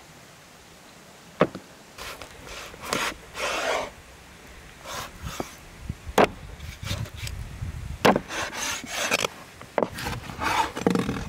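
Raw lamb being handled and cut with a cleaver on a wooden chopping board: a few sharp knocks of meat and blade on the wood, between scraping, rasping strokes as the cleaver slices through the meat.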